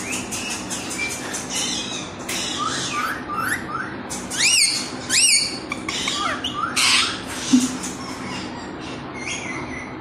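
Green pied parrot calling: a run of short rising chirps, then two loud whistles that rise and fall about halfway through, with harsh squawks in between. A short low thump comes near the end.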